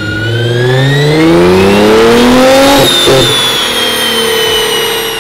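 Nissan GT-R's twin-turbo 3.8-litre V6 at full throttle on a chassis dyno, pitch rising steadily, then about three seconds in the pull breaks up with a brief stutter and the engine winds down with falling pitch, which the tuner takes for a boost cut at 5,600 rpm.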